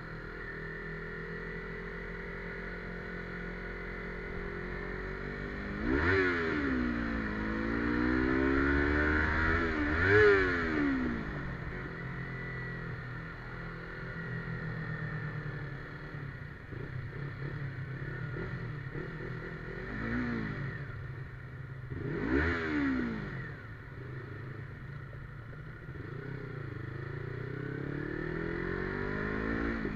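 Yamaha MT-25 parallel-twin engine with an open exhaust, heard from the rider's seat while riding. It runs steadily and revs up sharply several times, the pitch climbing and dropping quickly as the throttle opens and closes. The loudest surges come about six and ten seconds in, and twice more a little after twenty seconds.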